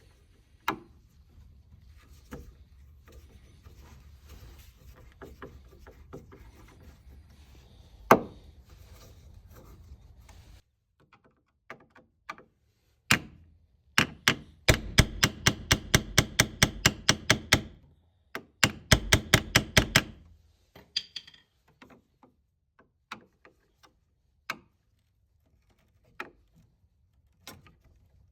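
Tools working a rusted screw out of wood. First comes a low hum with a few sharp knocks, then two runs of rapid, evenly spaced clicking over a steady noise, about five clicks a second, then scattered single taps.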